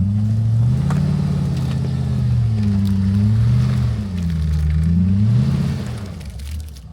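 Off-road 4x4's engine revving up and down several times under the driver's foot, its pitch rising and falling in swells, then easing off near the end.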